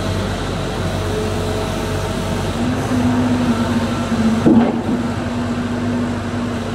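JCB JS130 tracked excavator's diesel engine running steadily while the boom and bucket are worked. A humming tone over the engine rumble shifts in pitch a few times, and there is a short knock about four and a half seconds in.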